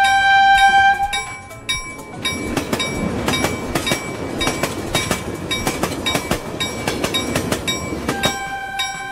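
Train sound effect of a toy locomotive: a steady whistle for about a second, then several seconds of rattling, clickety-clack chugging, then the whistle sounding again near the end.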